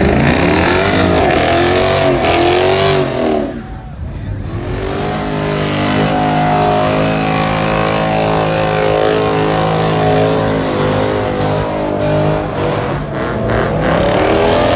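Pickup truck engine revving hard during a burnout, its tyres spinning and smoking. The revs rise and fall rapidly for a few seconds, drop briefly about four seconds in, hold steady at high revs for several seconds, then rise and fall again near the end.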